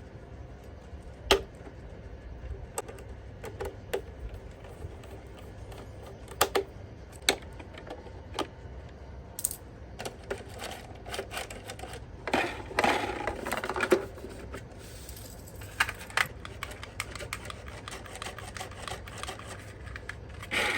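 Plastic toy parts and packaging being handled: scattered sharp clicks and taps, with a spell of rustling and clattering about twelve to fourteen seconds in.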